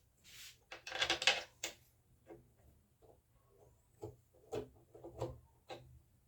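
Handling noise from putting in the last screw of a plastic sewing machine cover: a rustle in the first two seconds, then a scatter of light clicks and taps.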